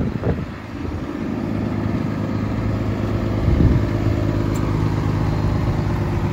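Cummins diesel engine of a Ford F-750 bucket truck idling steadily, with a brief louder moment a little past halfway.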